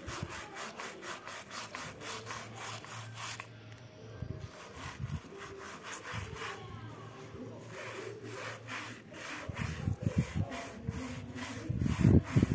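A hand brush scrubbing a wet foam clog back and forth in quick, even strokes, about four a second, with a short pause about three and a half seconds in. A few low thumps come near the end.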